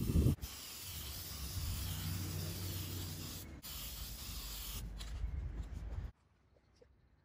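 Aerosol spray-paint can hissing steadily as paint is sprayed along an aluminium pole, with a couple of very brief breaks; it cuts off suddenly about six seconds in.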